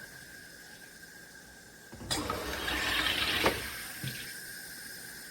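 SodaStream Terra carbonating a bottle of water: a single press of about a second and a half, CO2 hissing and bubbling into the water, starting suddenly about two seconds in and ending with a sharp click.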